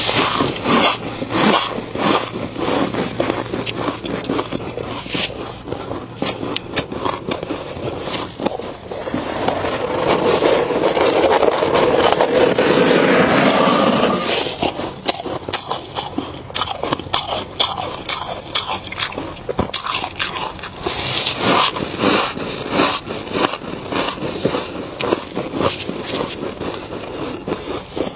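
Close-miked crunching and chewing of mouthfuls of freezer frost, a run of sharp crackly crunches. Starting about nine seconds in and lasting about five seconds, a gloved hand scrapes frost steadily off the inside wall of a chest freezer.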